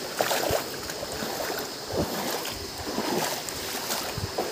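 Water splashing and sloshing in irregular bursts, with a few dull low thumps.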